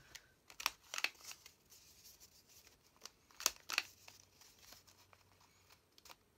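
Crop-a-Dile Corner Chomper corner-rounder punch cutting half-inch rounded corners into paper pages: two pairs of sharp snapping clicks, one pair about a second in and another a little after three seconds.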